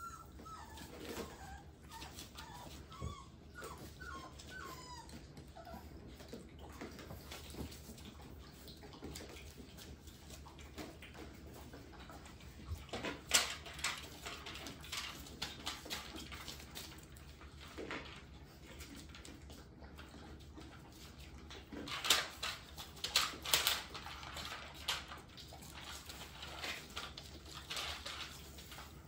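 Bullmastiff puppies at play: several short, high whimpers and whines in the first few seconds, then scattered sharp clicks and knocks of play. The knocks come loudest once about halfway through and in a cluster about two-thirds of the way in.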